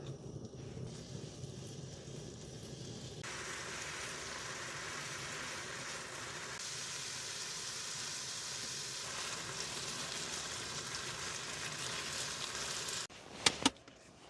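Bulgogi sizzling in a hot pan: a steady frying hiss that grows louder about three seconds in and stops abruptly near the end, followed by a couple of sharp clicks.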